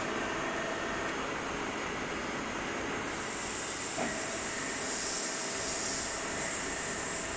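Hydraulic power unit of a butt fusion machine running steadily, its electric pump giving a continuous mechanical whir. About three seconds in, a high hiss of oil flow joins it as the control lever is worked, and there is a single click a second later.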